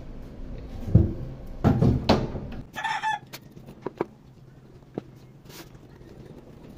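A rooster crows briefly, a short bright call about three seconds in. Before it come knocks and clunks of brake master cylinder parts being handled, the loudest a sharp knock about a second in, and faint clicks follow it.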